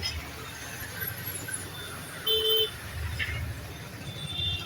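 Steady low rumble of vehicle traffic, with a short horn toot about two and a half seconds in.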